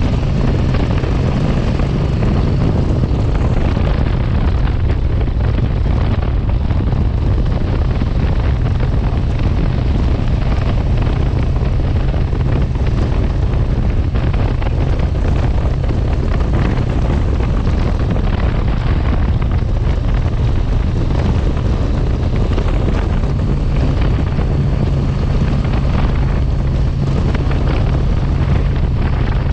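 Motorcycle engine running at a steady cruise under heavy wind noise on the microphone.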